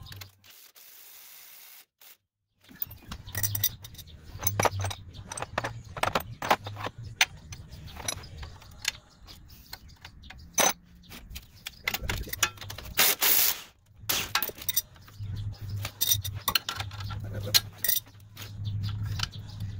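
Hand tools and steel suspension hardware being handled: irregular clinks and clicks of sockets, wrenches and bolts, starting about two and a half seconds in. About two-thirds of the way through comes a louder rasping noise lasting a second or two.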